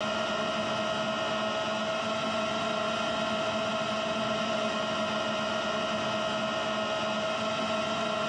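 Steady multi-tone hum of a DJI Mini 4 Pro quadcopter's propellers in level flight, with a hiss of rushing noise beneath.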